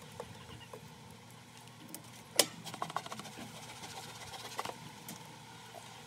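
Wooden clicks and knocks of a beehive frame being set back into the wooden hive box: one sharp knock about two and a half seconds in, then a cluster of lighter taps and a few more near the end, over a faint steady hum.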